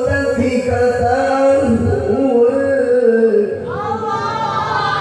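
A male qari reciting the Qur'an in the melodic tilawah style, drawing out long ornamented notes. Near the end the voice rises into a higher phrase.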